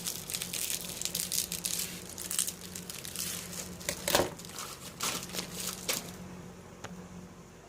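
Plastic bubble-wrap packaging crinkling and crackling as it is handled and pulled open by hand, a dense run of crackles that thins out about six seconds in.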